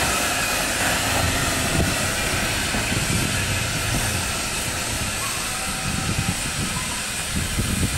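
Narrow-gauge Beyer Peacock 2-4-0 tank engines moving slowly under steam, with a steady hiss of steam and low, soft beats that grow stronger in the second half.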